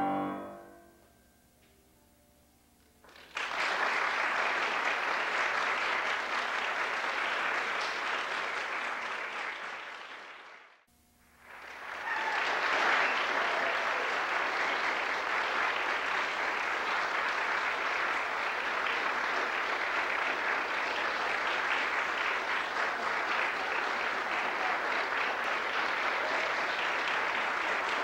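A piano's last notes die away, and after a short hush an audience starts applauding about three seconds in. The applause drops out for a moment near the middle, then comes back and runs on steadily.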